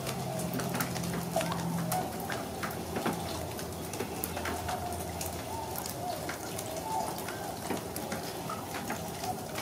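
A distant flock of swans calling, short wavering calls overlapping in a continuous chorus, with a scatter of light sharp ticks. A low steady hum fades out about two seconds in.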